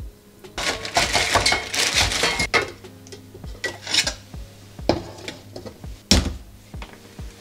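Kitchen clatter: seasoning shaken from a jar into a stainless-steel pot in about two seconds of dense rattling, then separate clinks and knocks as the pot lid is set on and a knife knocks at a plastic skyr cup, the loudest knock about six seconds in. Quiet background music runs underneath.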